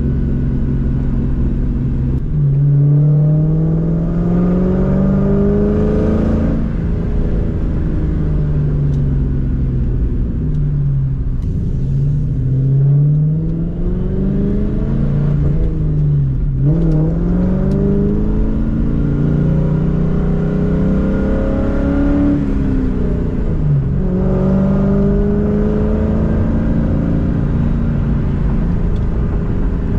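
2004 Ford Mustang GT's V8 with an off-road X-pipe and Borla S-Type exhaust, driving under power: the exhaust note climbs and falls back several times as the car pulls up through the revs, then holds steady near the end.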